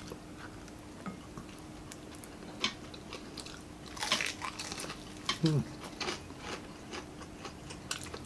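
Close-up eating of crispy deep-fried chicken neck: a loud crunching bite about four seconds in, followed by chewing with crisp little crackles. A short falling hum of a voice comes about a second after the bite.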